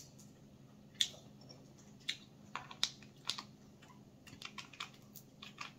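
Small, sharp clicks and ticks of cooked crab shell being picked apart by hand and with a metal crab pick, a few single ticks at first and a quicker run of them near the end.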